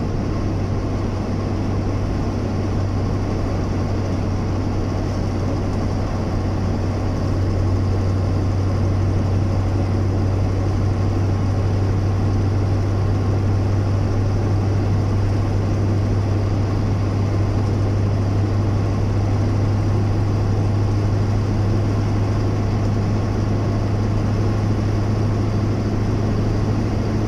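A vehicle cruising at a steady speed on an open road: a steady low engine drone under tyre and road noise, getting a little louder about seven seconds in.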